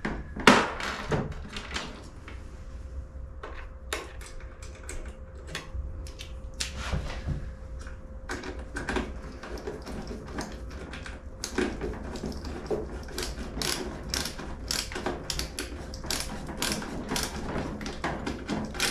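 Ratcheting hand driver clicking as a fitting is turned on the diesel heater's metal base plate. The clicks are scattered at first, then come as a quick run of about two or three a second through the second half.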